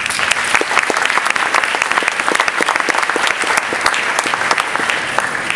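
Student audience applauding at the end of a spoken-word poem. The clapping starts suddenly and stays full and dense.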